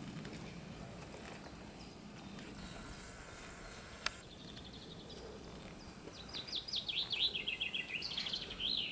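A songbird singing: scattered high chirps, then about six seconds in a fast run of notes falling in pitch that ends in a short flourish, over a faint steady hiss. A single sharp click about four seconds in.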